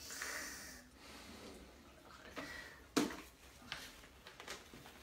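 Rustling and plastic knocks as an 8-week-old German Shepherd puppy delivers a small plastic basket to a hand, with one sharp knock about three seconds in and a few lighter taps after it.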